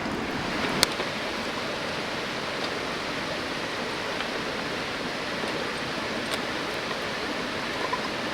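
Mountain river flowing, a steady rush of water, with one short click about a second in.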